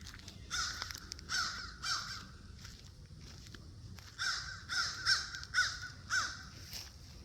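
Crows cawing: a few harsh caws, then a quicker run of about six caws from about four seconds in.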